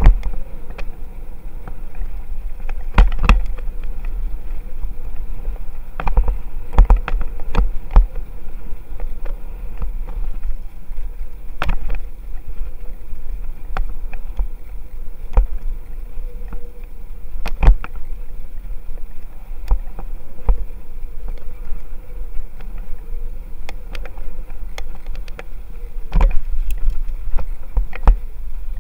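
Wind noise and road rumble from riding a bicycle, picked up by a bike-mounted camera, with irregular sharp knocks and rattles from jolts over the road surface.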